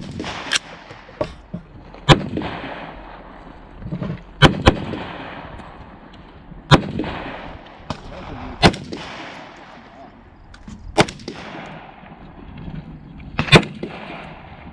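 AR-15 rifle firing single shots of steel-case .223, the loudest about every two seconds, each followed by a long rolling echo, with fainter shots from other shooters in between. The rifle cycles each round without a jam.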